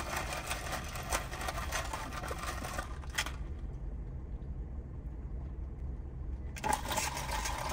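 Crackly rustling and small clicks from handling a drink cup and food packaging inside a car, over a steady low hum. The crackling stops for about three seconds in the middle, then returns near the end.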